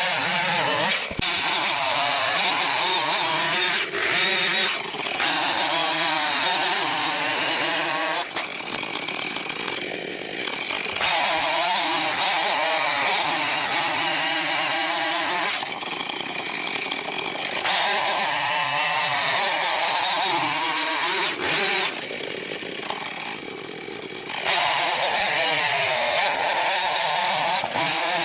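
Two-stroke Husqvarna chainsaw with a 16-inch bar bucking a dead ash log into short rounds. It runs at high revs under load through long cuts, its pitch wavering as the chain bites, and eases off briefly three times between cuts.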